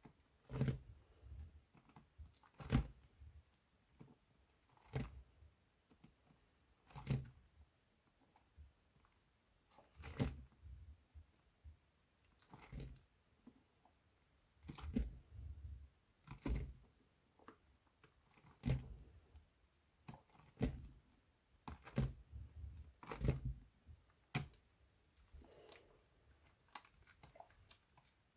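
Soaked glycerine soap being handled and washed by hand: a series of short, soft knocks and squishes, one every one to two seconds.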